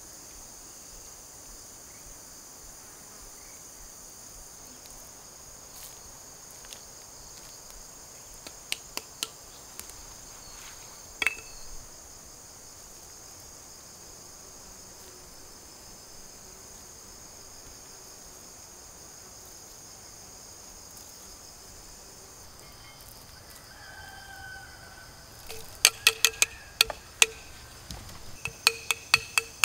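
Steady, high chorus of insects chirring in the jungle. A few sharp clicks come about nine and eleven seconds in, and a quick run of louder clicks and taps fills the last few seconds.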